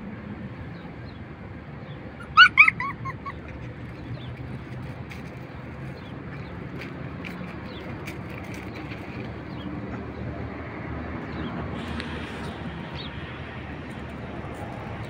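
A puppy gives a quick run of four or five short, high, falling yelps about two and a half seconds in, over steady outdoor background noise and faint scattered chirps.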